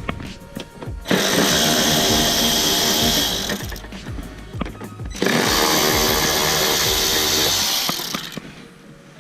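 A cordless power tool runs twice, each time for about two and a half seconds, spinning out 7mm bolts from a plastic frame inside a car's rear bumper, with small knocks between the runs.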